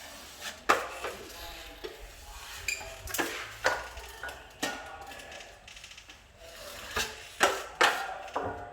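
Hand tools being handled: a series of sharp, irregular knocks and scrapes, about eight in all, several of them bunched in the last two seconds.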